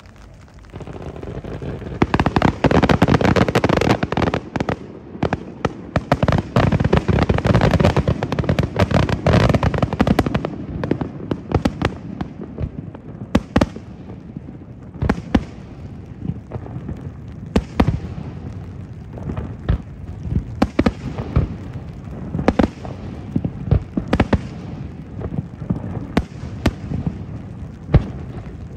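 Aerial fireworks bursting: a dense, rapid barrage of bangs and crackle from about two seconds in, thinning after about ten seconds to separate sharp bangs every second or two.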